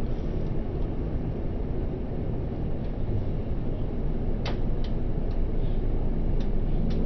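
Steady low rumble of airliner cabin noise in flight, with a few faint clicks in the second half.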